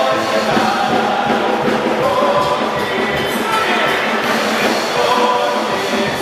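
Loud music with many voices singing together.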